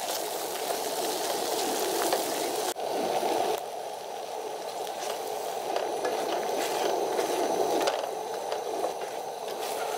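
A creamy cheese sauce bubbling and sizzling in a skillet while it is stirred with a slotted spoon, with a few light scrapes of the spoon; a short break about three seconds in.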